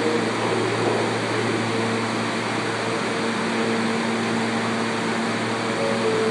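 Steady hum of a stopped New York City Subway R160 car with its doors open: its air conditioning and other on-board equipment running at a constant level, with a few low, steady tones under the fan noise.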